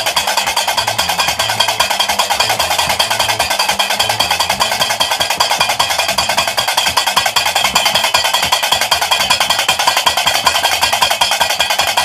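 Gnawa music: a guembri, the three-stringed bass lute, plucked in a repeating low bass pattern under the fast, unbroken clacking of qraqeb metal castanets.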